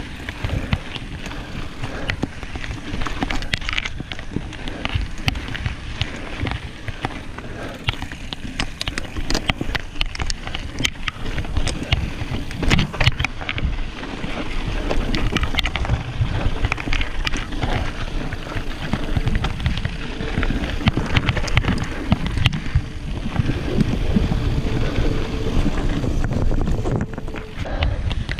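Mountain bike ridden over rocky dirt singletrack: wind rumbling on the microphone, tyres crunching over gravel and rock, and frequent clicks and rattles from the bike.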